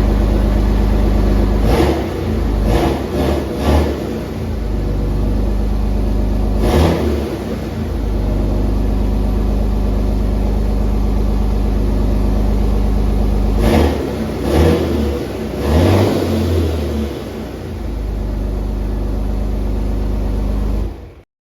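A 2007 Dodge Ram's 5.9 Cummins turbo-diesel engine running just after being started, with short blips of the throttle: several quick revs in the first few seconds, one about seven seconds in, and a cluster around fourteen to sixteen seconds in. The sound cuts off suddenly near the end.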